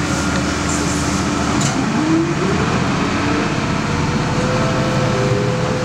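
Cabin sound of a 1997 Nova Bus LFS city bus under way: the diesel engine and drivetrain run under steady road noise. About two seconds in, a whine rises in pitch, then holds steady.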